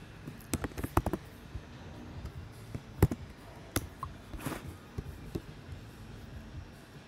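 Scattered sharp clicks from working a computer's pointer, about half a dozen at uneven intervals, with a brief rustle about four and a half seconds in, over a low steady hum.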